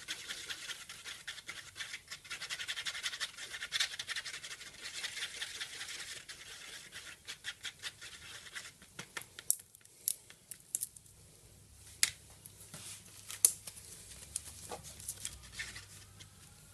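A mixing stick scraping and stirring two-part epoxy on a hard surface: a rapid, scratchy back-and-forth for about eight seconds. After that come scattered light clicks and taps.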